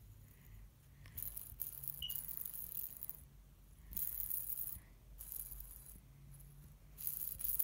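Metal fidget spinner rattling as it is spun and handled between the fingers, in several short bursts of high, dry rattle with short gaps between them.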